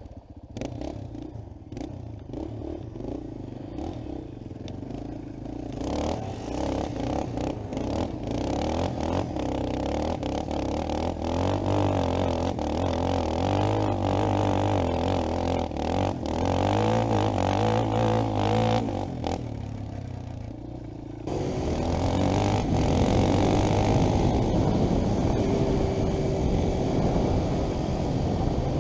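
ATV (four-wheeler) engine running and revving as it is ridden, its pitch rising and falling, with clatter over it. The sound jumps louder about 21 seconds in.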